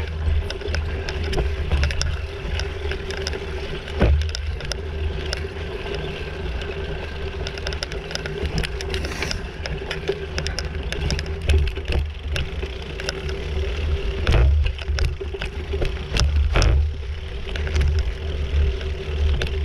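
Bicycle riding down a bumpy trail: wind buffets the microphone as a low rumble, the bike rattles and knocks sharply over bumps, and a steady hum runs underneath.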